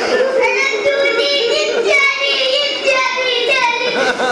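A boy's high voice chanting a Persian Shia eulogy (noha), holding long notes that waver and bend in pitch.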